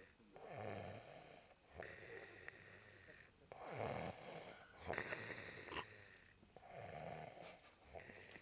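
A man snoring in his sleep: three snores about three seconds apart, with breathy sounds between them.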